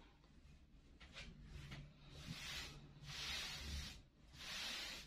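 Hands smoothing fabric laid flat on a cutting table: a run of soft swishing strokes, each under a second, louder in the second half.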